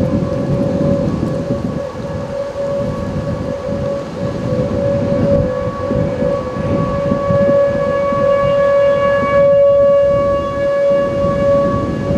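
Whelen electronic outdoor warning sirens sounding a steady, unwavering tone for a tornado warning. The tone swells and fades in loudness as the sirens rotate, and is loudest near the end. A low, uneven rumbling noise runs underneath.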